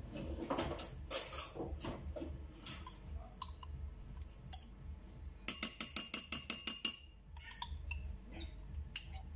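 Metal spoon clinking and scraping inside a small glass mustard jar as mustard is scooped out, with scattered light clinks and, about halfway through, a quick run of about ten clinks in a row.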